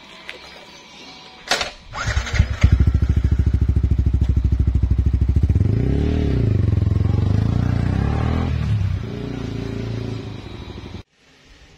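Yamaha XSR 155's single-cylinder engine starting after a click, about two seconds in, then running with an even pulse. It revs up and down and fades as the bike pulls away.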